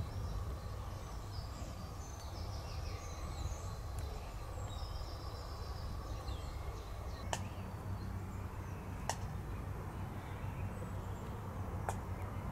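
Small birds chirping and twittering over a steady low rumble, the chirps mostly in the first half, with four faint sharp clicks spread through.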